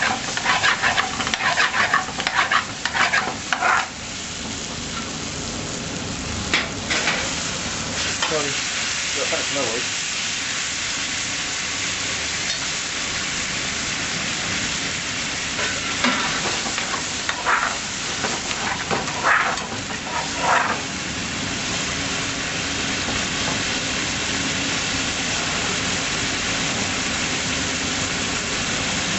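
Chicken tikka pieces frying with garlic in a metal frying pan, a steady sizzle throughout. A metal spoon scrapes and knocks against the pan in bursts during the first few seconds and again a little past the middle, as the pieces are stirred.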